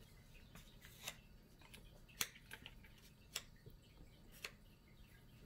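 Metal palette knife tapping and scraping against a paint palette: about five light, separate clicks in near quiet, the sharpest a little past two seconds in.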